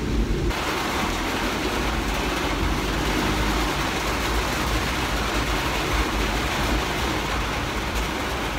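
Heavy downpour beating on the van's roof, heard from inside the cabin as a loud, steady hiss that comes in suddenly about half a second in, over the low rumble of the vehicle driving.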